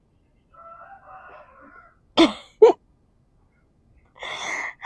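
A woman crying: two short, sharp catches of breath about two seconds in, then a long sniffle near the end as she wipes her eyes with a tissue. Before that, a rooster crows faintly.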